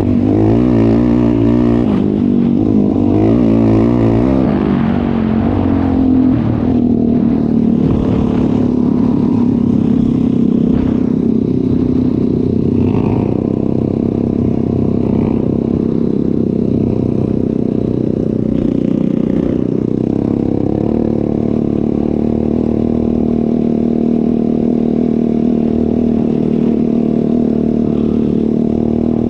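ATV engine under way, its pitch rising and falling with the throttle for the first few seconds, then holding a steady pitch.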